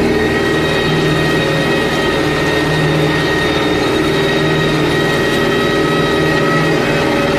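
Tractor engine running steadily under load as it pulls a disc plough through the soil, with a steady high whine over the low drone.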